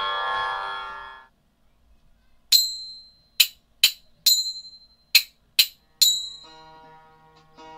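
Devotional background music: the sustained accompaniment fades out, then a high bell-like chime is struck seven times in a rhythmic pattern (one, then two groups of three), each stroke ringing briefly. Near the end a plucked string instrument begins softly.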